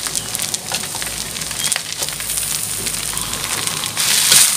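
Fried rice sizzling in a hot wok as a metal spatula stirs and scrapes it, with many short scraping clicks. Near the end the sizzle grows louder as cabbage shoots go into the wok.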